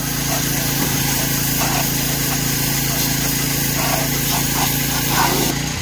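Pressure washer spraying a jet of water onto an aluminium intake manifold to rinse off oven cleaner: a steady hiss of spray over the steady hum of the washer's small engine, changing slightly near the end.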